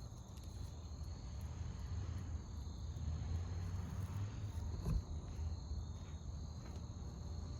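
Steady high chirring of insects over a low rumble, with a single sharp knock about five seconds in. No hiss or spray of a leaking hose fitting is heard.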